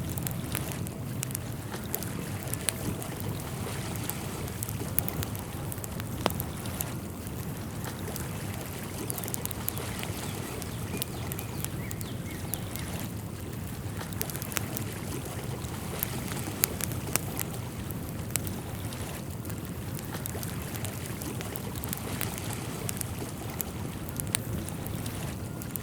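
Outdoor nature ambience: a steady rushing noise with many small, sharp ticks scattered irregularly throughout.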